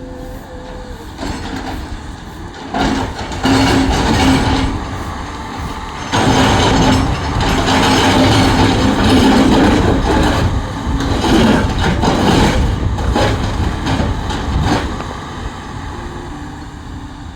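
Caterpillar heavy machine's diesel engine working under load, with metallic clanking and rattling. It gets much louder in the middle for several seconds, then eases off.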